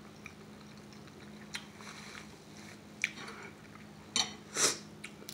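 Close-up eating sounds of someone eating mussels with ramen: quiet chewing, with short wet mouth smacks about one and a half and three seconds in, and two louder ones near the end. A faint steady low hum runs underneath.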